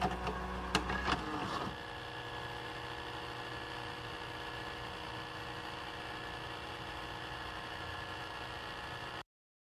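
VCR tape mechanism clicking and whirring as a videotape loads, then the steady hum and hiss of VHS playback with a faint whine in it, cutting off suddenly near the end.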